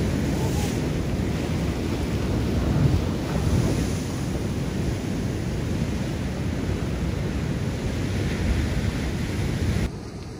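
Ocean surf breaking against a rocky shore, with wind buffeting the microphone: a steady rushing noise that drops off abruptly near the end.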